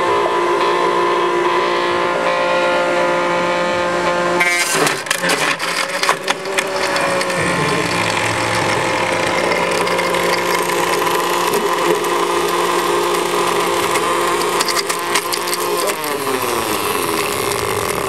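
Blender motor running loud and steady with a high whine; about four seconds in, the sound turns harsher and clattery as the ice-cream cone with its crunchy chocolate coating is churned in the jar. Near the end the motor winds down, its pitch falling.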